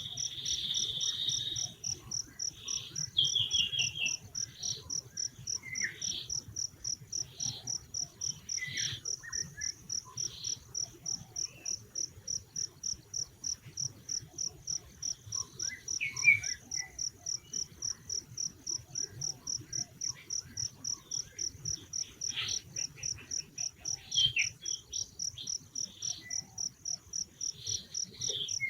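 Insect chirping in a steady high-pitched pulse, about three pulses a second, with scattered short chirps and squeaks from other animals over it; the loudest of these come about 3, 16 and 24 seconds in.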